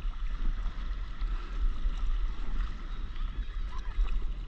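Gusty wind rumbling on the microphone of a camera on a stand-up paddleboard, over a steady wash of water moving around the board.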